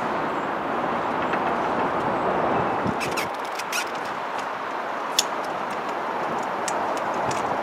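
CSX diesel freight locomotive approaching slowly with its engine running, heard as a steady noise. A few sharp clicks come in from about three seconds in, the loudest a little past five seconds.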